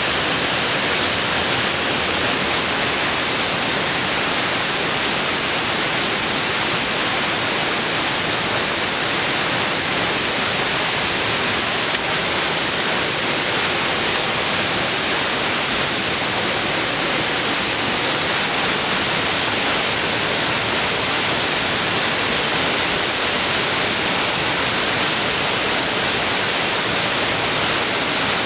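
Waterfall water pouring down without pause: a loud, steady rushing hiss.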